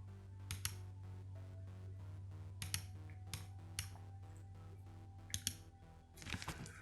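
Sharp small clicks, about eight, several in close pairs, from a screwdriver working the bottom-case screws of an Acer Extensa 15 laptop, with a brief scrape about six seconds in, over quiet background music.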